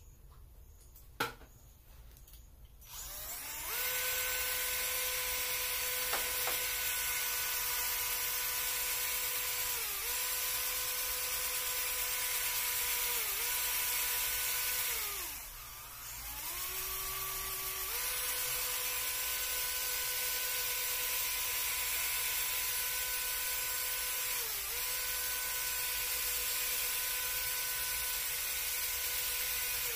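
Electric drill spinning a plastic scrub brush on a wet tile floor through a PVC-pipe shaft: a steady motor whine that starts about three seconds in. Its pitch sags briefly a few times, and about halfway through it stops, restarts slower, then comes back up to full speed.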